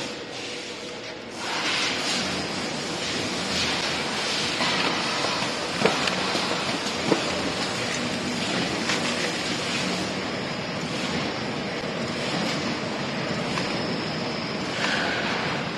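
Automatic cartoning machine running, packing 12-colour plasticine sets into boxes: a steady dense mechanical clatter and whirr that swells about a second in after the controls are pressed, with two sharp clicks around the middle.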